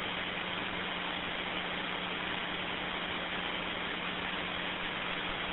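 Steady hiss with a faint low hum over an open two-way radio channel, a keyed transmission with no one talking yet. The hum may be cab or background noise carried by the radio.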